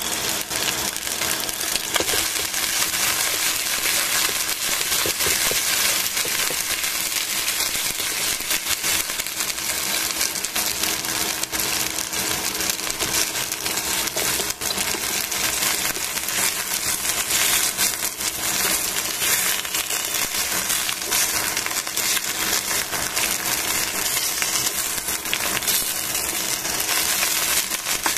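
Chicken wings sizzling in oil in a stainless steel frying pan: a steady, dense crackle of spitting fat.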